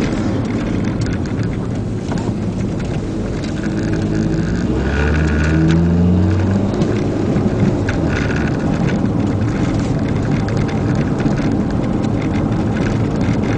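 Engine, tyre and wind noise inside the cabin of a Mitsubishi club race car at speed on track. About halfway through, the engine note rises as the car accelerates hard onto the straight.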